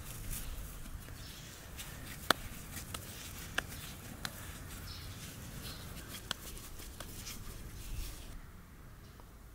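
Hands working bread dough on a floured wooden board, pulling off pieces and rolling them into balls, with a low handling rumble and a few scattered sharp light clicks, the loudest about two seconds in.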